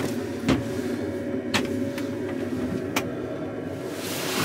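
Boat engine droning steadily, heard inside the aluminium boat's cabin, with a few sharp clicks over it.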